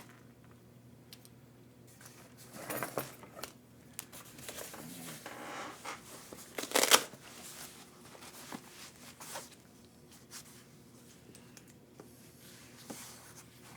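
Rummaging among small tools and parts, with scattered clicks, rustling and scraping; the loudest clatter comes about seven seconds in.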